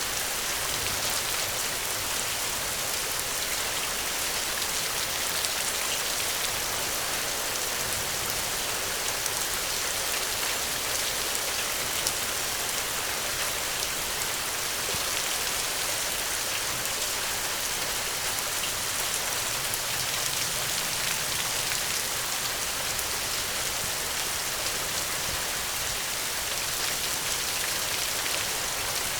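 Steady rain falling on a surface, a dense even patter of drops with no break or change.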